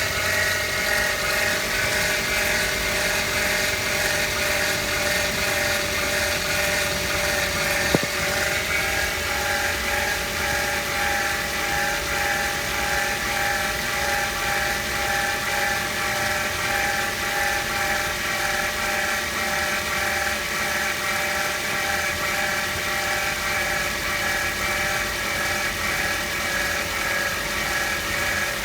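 Toyota Vitz engine running with a steady, strange whirring whine made of several tones that sag slightly lower over time, and a single sharp click about eight seconds in. The whir is a fault that mechanics have not been able to trace.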